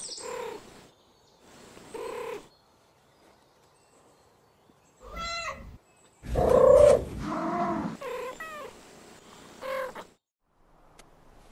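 Domestic cat meows and mews, about seven short separate calls with pauses between them, several bending up and then down in pitch; the loudest comes a little past the middle.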